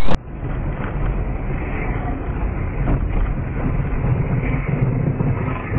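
A car driving, heard from inside its cabin: a steady rumble of engine and tyres on the road.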